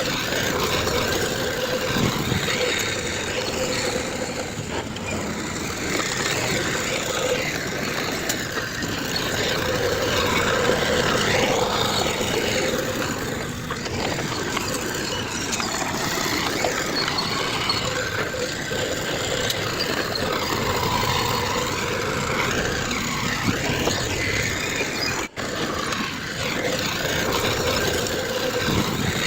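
Diesel engines of heavy earthmoving machinery, bulldozer and dump trucks, running steadily under work, with a faint steady whine. The sound drops out for an instant about 25 seconds in.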